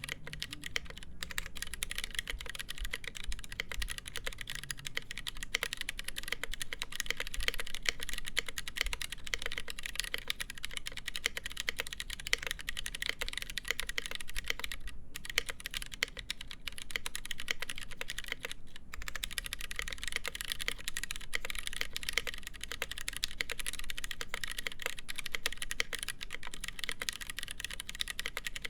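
Steady, fast typing on a Noxary 268.1 mechanical keyboard with lubed Gateron Brown tactile switches, GMK keycaps and a full polycarbonate plate, a dense run of keystroke clacks. Two brief breaks in the typing come about halfway through.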